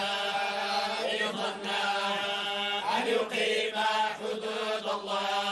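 A group of men chanting the Quran in unison, Moroccan collective recitation in the Warsh reading, drawing out the syllables in long held, slowly moving notes without a break.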